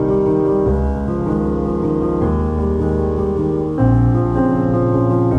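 Soft background piano music: sustained chords that change every second or two, a louder chord coming in about four seconds in.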